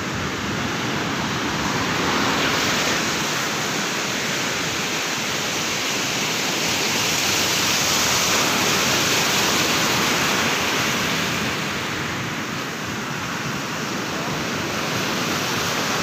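Ocean surf breaking on the beach: a steady rush of noise that grows louder around the middle and eases a little later on.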